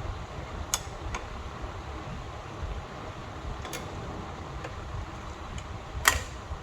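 A few sharp metal clicks and taps from brake parts and hand tools being handled, the loudest near the end, over the steady hum of a shop fan.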